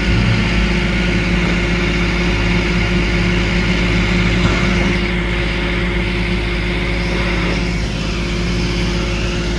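A vehicle engine idling steadily: a constant low hum with a few steady tones that does not change.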